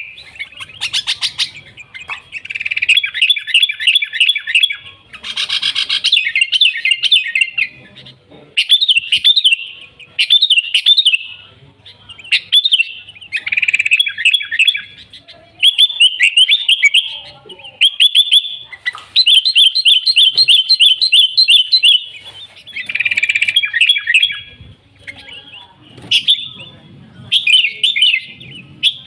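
Sooty-headed bulbul (kutilang) in vigorous song: bursts of quick, bright chattering and whistled notes, one phrase after another every second or two with short gaps between them.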